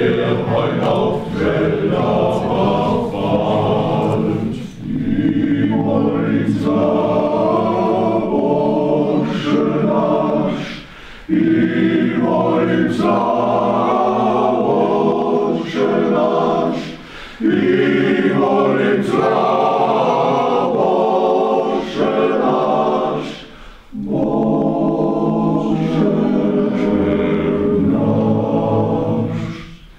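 Men's choir singing a cappella, in sustained phrases of about six seconds with short breaks for breath between them.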